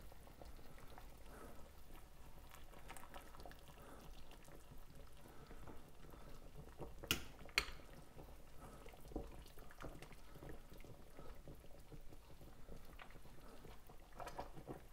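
Faint liquid sounds from a stainless steel pot of chicken broth as boiled chicken pieces are lifted out with metal kitchen tongs. Two sharp clicks of the tongs against the pot come about seven seconds in.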